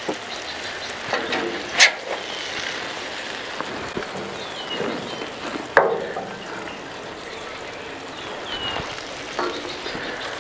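Food sizzling steadily on a hot Blackstone flat-top griddle, with a few sharp clicks and scrapes of a metal spatula, the loudest about 2 s and 6 s in.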